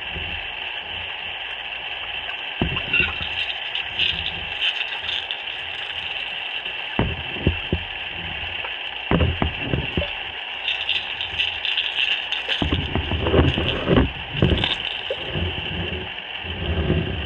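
Underwater ambience picked up by a camera submerged in a swimming pool: a steady high hiss with irregular low thuds and bumps of moving water, coming more often in the second half.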